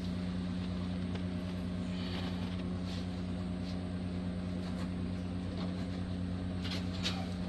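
A steady, low machine hum, constant in pitch, with a few faint clicks from handling.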